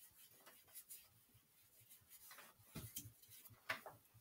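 Dry-erase marker drawing on a whiteboard: a handful of faint, short strokes, the clearest ones about two and a half to four seconds in.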